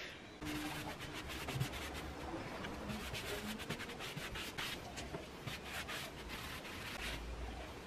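A sponge rubbing stain over a dampened bare pine tabletop, a soft scrubbing made of many quick repeated strokes.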